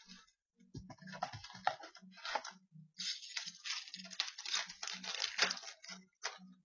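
Crinkling and tearing of a foil hockey card pack wrapper being opened by hand, with the cards inside being shuffled. It comes in patches and is densest from about three seconds in.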